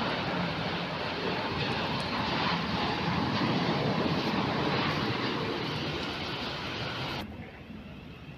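Jet airliner's engines passing overhead: a loud, steady roar that cuts off suddenly near the end.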